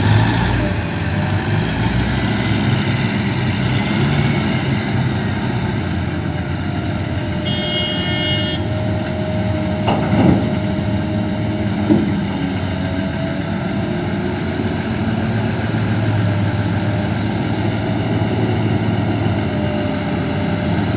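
Diesel engines of a BEML BE1000-1 mining excavator and a BEML BH60M dump truck running steadily under load. A brief high beep sounds about eight seconds in. Two heavy knocks follow, about ten and twelve seconds in, as the excavator bucket drops its load into the dump truck's body.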